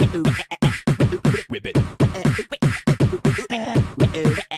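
Music track with quick rhythmic vocals over a percussive beat.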